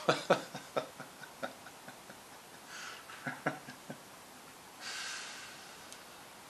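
A man's soft laughter trailing off over the first second or so, then breathy exhales through the nose with a brief chuckle in between.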